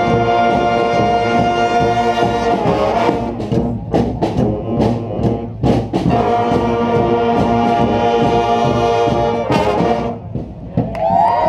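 Brass street band of trumpets, trombones and drums playing a rock tune: long held brass chords broken by drum hits, stopping about ten seconds in. Near the end, whoops and cheers start.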